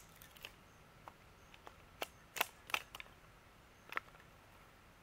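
A hatchet chopping kindling on the ground: a series of sharp, irregular knocks, the loudest two close together about two and a half seconds in.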